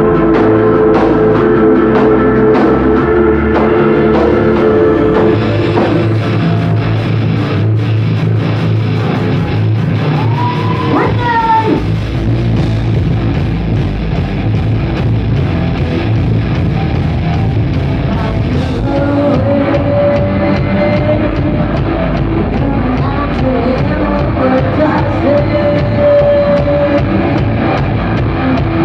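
Live hard rock band playing loud, recorded from the crowd in a small club: distorted electric guitars, bass and a drum kit, with a held chord over the first few seconds.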